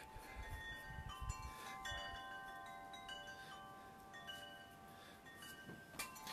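Faint wind chimes ringing: several clear tones start at different moments and hang on for seconds, overlapping one another.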